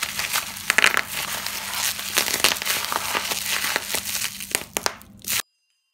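Plastic bubble wrap being crumpled and squeezed in a hand: a dense crinkling crackle with many sharp clicks, cutting off suddenly near the end.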